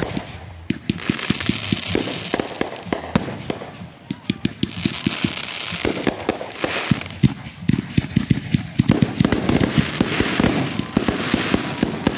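Consumer aerial fireworks launching from ground tubes and bursting overhead, with rapid crackling pops and bouts of hissing throughout.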